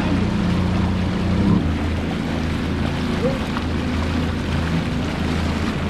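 Small skiff's outboard motor running steadily under way, with water rushing along the hull; the engine note steps a little lower about a second and a half in.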